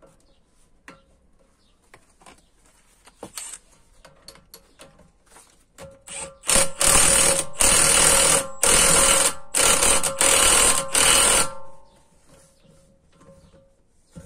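Milwaukee cordless impact tool hammering in about six bursts of a second or so, run down the threaded rod of a coil spring compressor to compress a MacPherson strut's spring. Before the bursts come a few light clicks and knocks as the tool is fitted to the rod.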